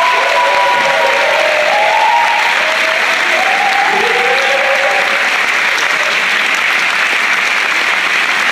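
Large theatre audience applauding steadily, a dense continuous clapping.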